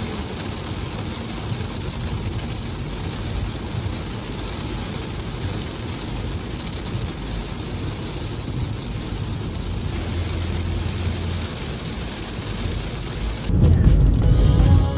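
Heavy rain drumming on a car's windscreen and roof, heard from inside the car as a steady dense hiss. Near the end a louder low rumble comes in.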